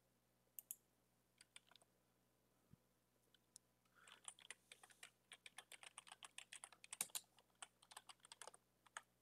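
Faint computer keyboard typing: a few scattered keystrokes, then a quick run of typing from about four seconds in until near the end.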